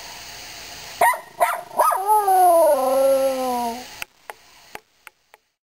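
A dog howling: a few short yips about a second in, then one long howl that falls in pitch. It cuts off suddenly about four seconds in.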